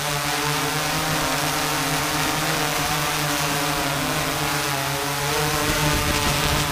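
Multirotor camera drone's propellers and motors humming steadily, heard close up through a microphone on the drone itself. The hum grows louder and rougher near the end as the drone comes down close to the road.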